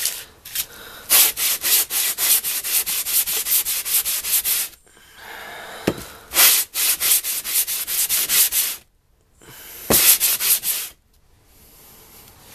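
Japanese waterstone scrubbed back and forth on wet-or-dry sandpaper, a gritty wet rasping at about four strokes a second, in three runs with short pauses between. This is the stone being flattened (trued), grinding down its high spots until the pencil marks on the low spots are gone.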